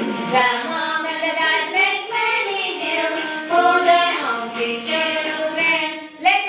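A group of young children singing a phonics letter-sound song, with music behind them.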